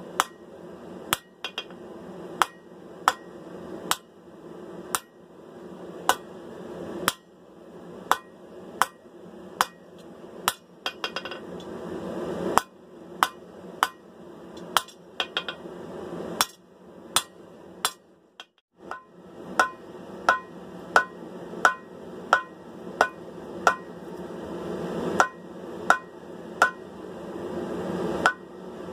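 Hammer blows on hot steel at the anvil, about one strike a second, drawing out and narrowing a sword blank. The hammering stops briefly about two-thirds of the way through, then resumes with a brighter ring on each blow.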